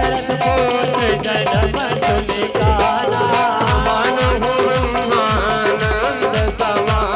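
Indian devotional folk music: a wavering melody over a hand drum whose low strokes drop in pitch, about two a second, with a shaken rattle.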